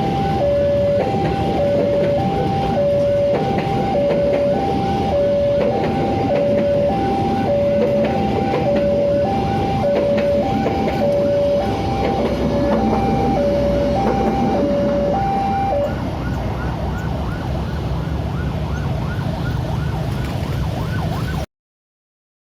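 Ambulance hi-lo two-tone siren, each note lasting about half a second, sounding together with a railway level crossing's warning bell dinging about twice a second, over traffic noise. The siren stops about three-quarters of the way through, leaving the crossing bell, and all sound cuts off abruptly near the end.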